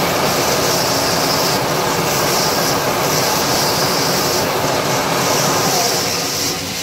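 Wood lathe running with a turned wooden flower pot spinning on it, and sandpaper hissing against the wood in passes of about a second at a time. The overall sound drops a little near the end.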